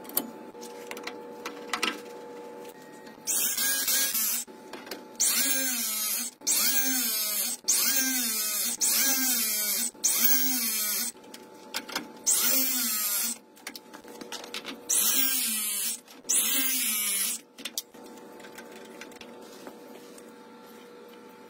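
Milwaukee cordless press tool running in a quick series of short whirring bursts, each under a second, its motor pitch rising and falling in each, as its jaws crimp copper press fittings onto the pipe.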